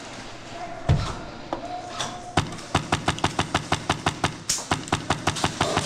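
Airsoft gun firing a rapid string of shots, about seven a second, for some three seconds, after a single heavy thud about a second in.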